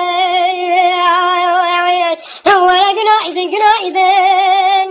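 A woman's high singing voice holding a long note with a fast waver. It breaks off briefly about two seconds in, then comes back with a few shorter notes and settles into another long held note.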